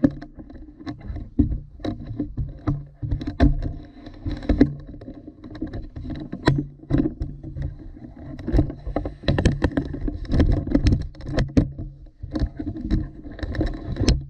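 Irregular clicks, knocks and creaks from handling a Greenworks 40V cordless mower on wooden deck boards, including its height-adjustment lever being moved to a lower setting, over a low steady hum.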